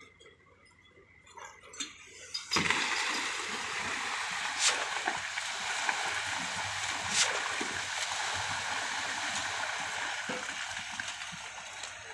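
A steady rushing, splashing noise like running liquid starts suddenly about two and a half seconds in and goes on until it fades near the end, with a couple of sharp knocks partway through.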